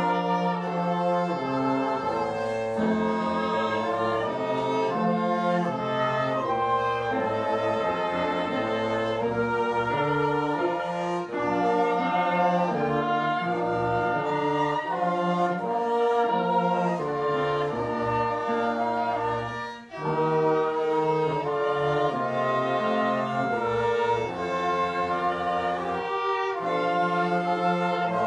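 Small mixed ensemble of brass, woodwind and strings playing together in sustained chords, with a brief break about twenty seconds in before the playing resumes.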